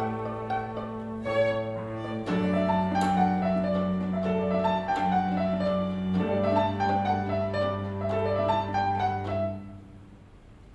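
String quartet and piano playing live, with long held cello notes beneath a moving violin line and piano. The phrase comes to its end and the music stops about nine and a half seconds in, leaving only quiet room sound.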